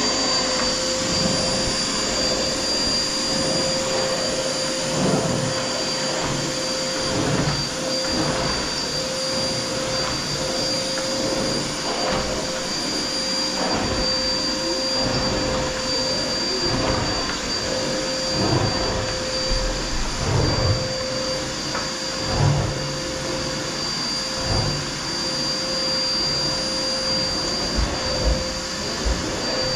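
A Power Full 1400 drum-type canister vacuum cleaner running steadily with a constant whine while its floor nozzle is worked back and forth over carpets. Irregular soft thumps and scrapes come through.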